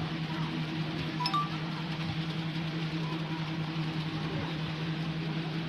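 A steady low hum over a faint scratching of crayon on a coloring-book page, with a brief high ping about a second in.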